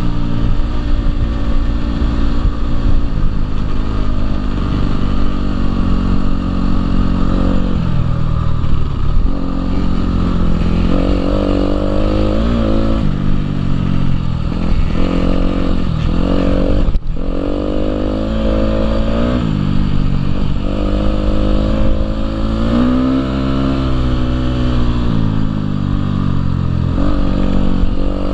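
Husqvarna dirt bike engine heard from the rider's seat, revving up and down repeatedly through the gears over a steady rushing noise, with a brief dropout a little past halfway.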